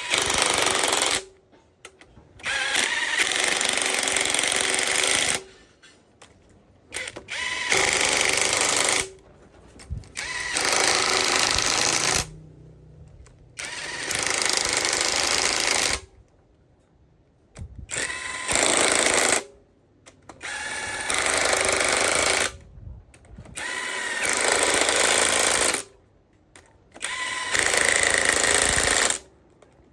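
A power tool run in repeated bursts of one to three seconds, about nine times, with short pauses between.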